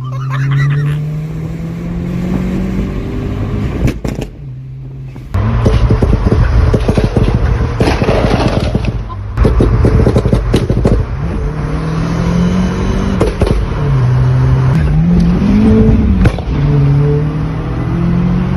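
Turbocharged Audi 1.8T four-cylinder engine, tuned to about 300 hp, pulling through the revs several times. The turbo flutters when the throttle is lifted between pulls. There is a brief quieter dip about four seconds in, and the running is louder after it.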